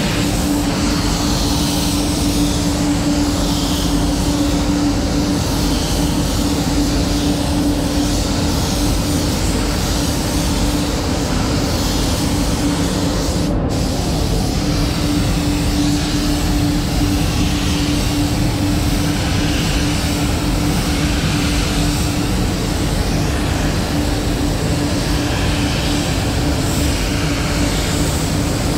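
Gravity-feed paint spray gun hissing as compressed air atomises paint in repeated passes, over the steady hum of the spray booth's ventilation. The hiss swells and eases with each pass.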